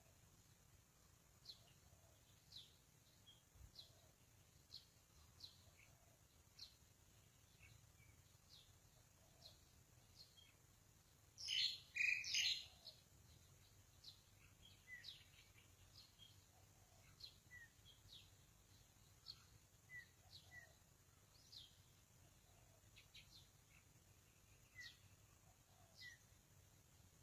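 Faint, sparse bird chirps: short, high, falling notes about once a second, with a louder burst of calls lasting about a second about midway through.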